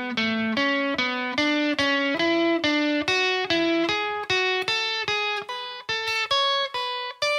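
Fender electric guitar playing a scale in thirds through an amp: single picked notes at about three a second, each note followed by the note a third above it, working up the scale and ending on a held, ringing note about seven seconds in.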